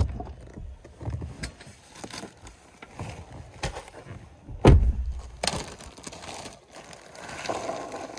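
Things being handled and moved around: a series of knocks and thumps, the loudest a little over halfway through, with rustling in between.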